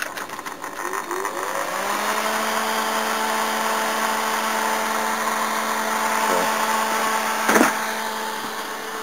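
Small refrigeration chiller unit switched on. Its motor hum rises in pitch for about a second as it spins up, then runs steady. There is a brief knock near the end.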